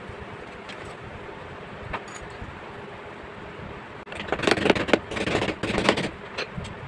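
Steady low hiss, then, after a cut about four seconds in, some two seconds of loud gritty scraping and clinking as a stick is swept through sand around cast metal wrenches.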